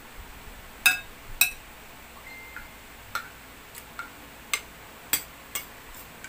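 Metal fork and spoon clinking against a ceramic plate and soup bowl while eating: about nine separate clinks. The two loudest, about a second in, ring briefly.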